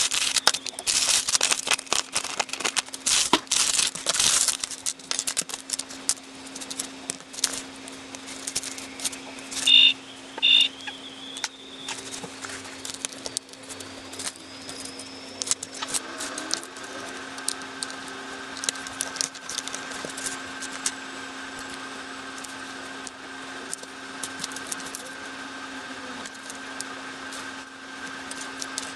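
Foil blind bag being cut open with scissors and crinkled for the first several seconds, then small plastic building bricks clicking as they are handled and pressed together, over a steady low hum. Two short high beeps sound about ten seconds in.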